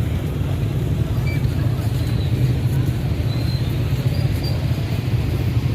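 Steady low outdoor din of crowd and traffic noise, with no firework bangs.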